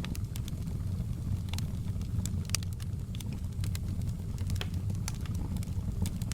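Wood fire burning in a fireplace: logs crackling with irregular sharp pops and snaps over a steady low rumble.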